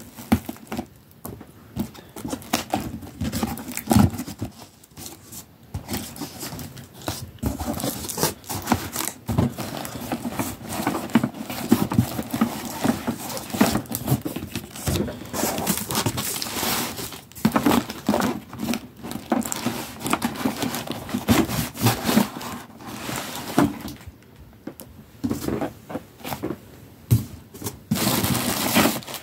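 A plastic-wrapped cardboard shipping box being cut open with scissors along its packing tape, then its flaps pulled back and the contents handled: irregular scraping, tearing and crinkling of cardboard, tape and plastic.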